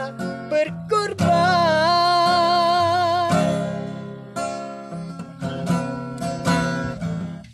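A man singing to his own acoustic guitar, holding one long wavering note for about two seconds in the first half. The acoustic guitar then plays on alone with picked notes and strums.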